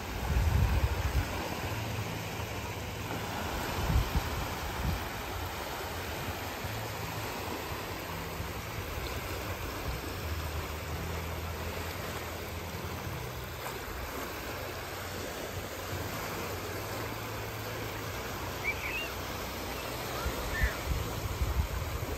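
Small sea waves breaking and washing onto a sandy shore, a steady hiss of surf. Wind buffets the microphone in low rumbling gusts about a second in and again near the end.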